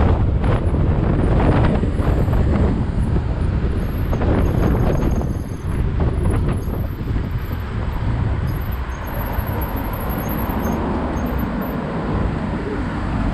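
Car traffic on a busy city avenue, heard from a moving bicycle, with wind buffeting the action camera's microphone as a steady low rumble.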